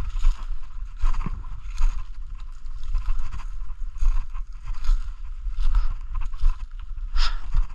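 Footsteps crunching through dry fallen leaves at a steady walking pace, a little more than one step a second, each step a crackle of leaves over a dull thud.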